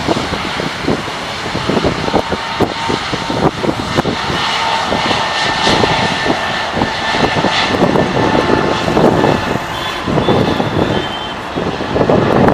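Jet airliner's engines at takeoff power, a loud rush with a steady high whine, mixed with wind buffeting the microphone.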